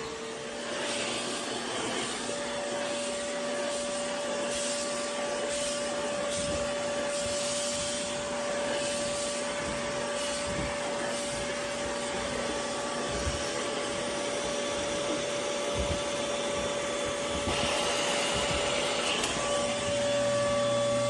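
Oneisall LM2 pet grooming vacuum running, a steady motor whine over rushing suction air, as it trims a pet's coat and sucks up the cut hair.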